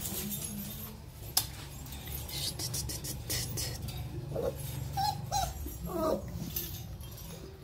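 Puppies whining, giving a few short, high whimpers between about four and six seconds in, with one sharp click about a second and a half in.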